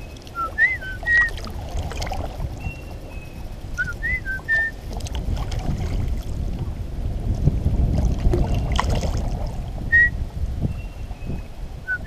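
A short phrase of about four whistled notes, bending up and down, repeated a few times with pauses of several seconds, over a steady low rumble.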